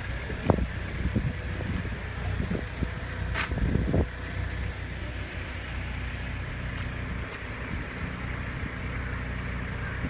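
Toyota HiAce minibus running, heard from inside the cabin: a steady low engine and road hum with scattered knocks and rattles.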